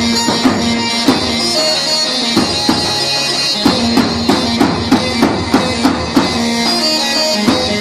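Chobi dance music: a reed wind instrument plays a nasal, droning melody over a regular drum beat of about two to three strokes a second.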